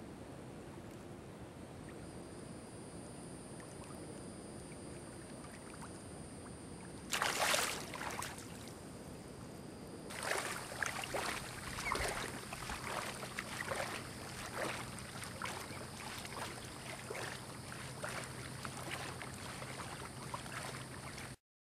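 Splashing and sloshing in shallow water: one loud splash about seven seconds in, then steady irregular splashing from about ten seconds on, cut off abruptly near the end.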